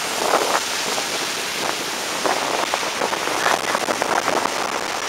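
Steady rushing hiss of a ferry under way, water washing past the hull and wind across the open deck, with a few brief louder gusts.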